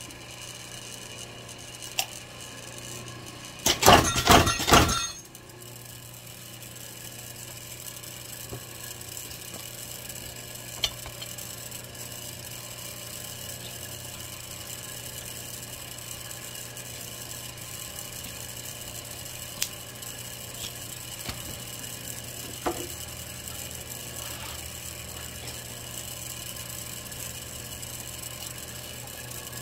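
Herman Schwabe 20-ton clicker press humming steadily, with one loud cutting stroke about four seconds in: a burst of about a second with several peaks as the head drives the steel die through the leather. Light clicks of the die and leather being handled follow.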